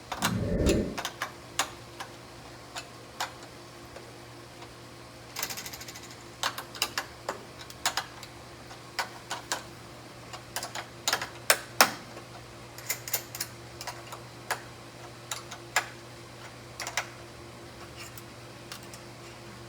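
Sharp, irregular metal clicks of a wrench turning the nut on a corner cable's eye bolt, with a screwdriver through the eye holding it, as the cable is drawn taut; about five seconds in comes a quick run of clicks. A brief low rumble at the very start, and a steady low hum underneath.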